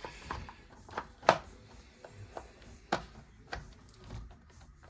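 A handful of sharp knocks and clicks from parts and tools being handled on a workbench, the loudest about a second in.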